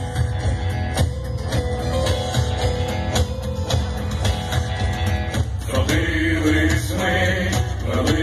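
Loud live music from a stage sound system at an outdoor concert, with a voice starting to sing about six seconds in.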